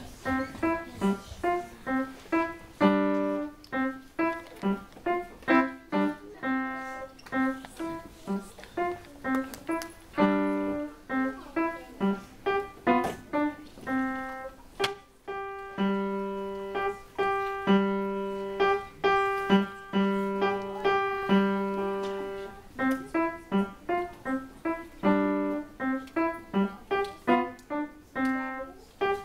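Piano playing a tune of short, detached notes, with a stretch of longer held notes in the middle.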